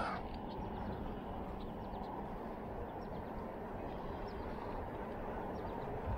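Steady rush of wind and rolling road noise from riding along a paved road, with no speech.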